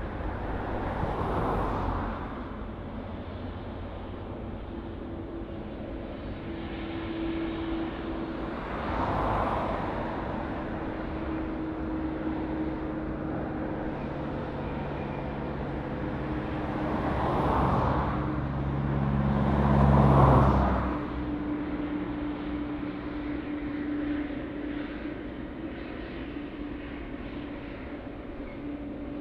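Jet airliner engines running on landing approach, a steady low rumble with a whine. Four brief loud whooshes pass over it, the loudest about twenty seconds in.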